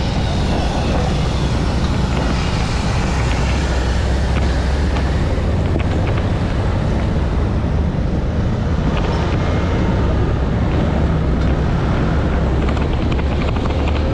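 Vespa scooter riding over a rough gravel road: the engine and tyres make a steady low rumble, mixed with wind buffeting on the microphone and scattered light ticks of loose stones.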